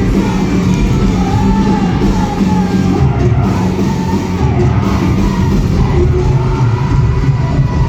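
Rock band playing loud and live, with a singer's voice wavering over the dense full-band sound.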